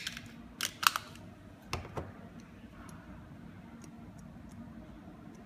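Sharp clicks and taps of a Kiwifotos lens mount adapter being handled on a camera's bayonet mount: a quick cluster of about six clicks in the first two seconds, then only a few faint ticks.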